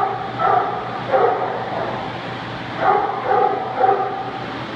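A dog vocalizing in short, pitched yips and whines in three clusters: about half a second in, about a second in, and again from three to four seconds in.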